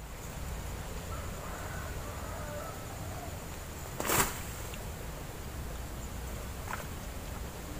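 Swamp-side outdoor ambience with a steady low rumble and a faint high steady whine, faint bird calls between about one and three seconds in, and one sharp short noise about four seconds in, with a fainter click near the end.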